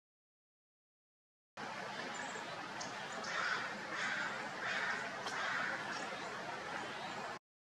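A bird calling four times, roughly two-thirds of a second apart, over a steady hiss of outdoor background noise. The sound cuts in and cuts off abruptly.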